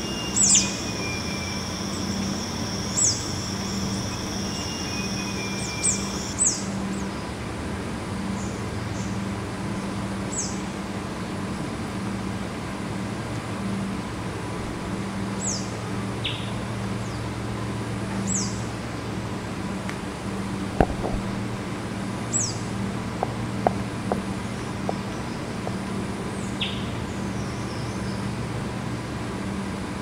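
Red-capped flowerpecker giving short, thin, high 'seeep' calls that fall in pitch, one every few seconds, over a steady low hum. A steady high tone stops about six seconds in, and a single sharp knock comes about two-thirds of the way through.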